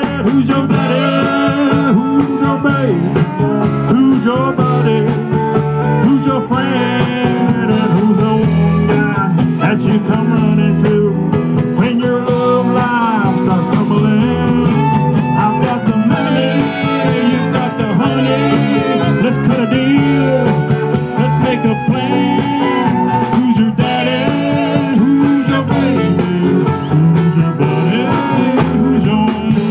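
Live country band playing a song loud through the stage PA: acoustic and electric guitars, drums and keyboard, with a fiddle and steel guitar on stage.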